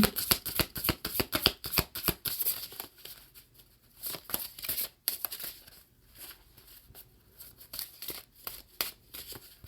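A deck of affirmation cards being shuffled and handled by hand: a quick run of soft card flicks and slaps that thins out after about three seconds into scattered taps.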